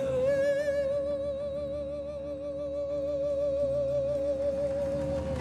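A singer holds one long note with vibrato, ending a sung phrase, over soft held accompaniment notes below it.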